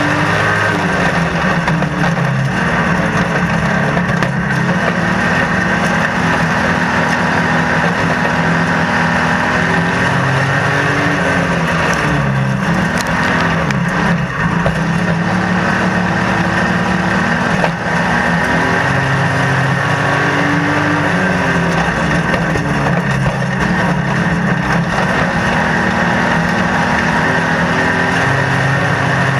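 Stockcar engine at racing revs, heard from inside the car. Its pitch drops and climbs again several times as the driver lifts off for the corners and accelerates out.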